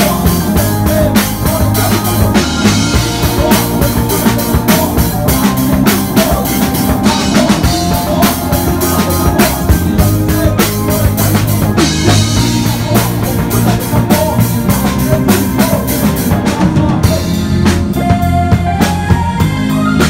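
A live band playing a pop-rock song: a steady drum-kit beat with bass guitar, keyboard and vocals at the microphone. About seventeen seconds in the drums stop and single keyboard notes carry on.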